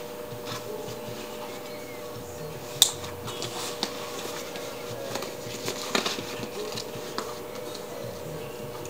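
Nylon backpack being handled and closed up: fabric rustling and scraping, with a few sharp clicks from its fittings, the loudest about three seconds in.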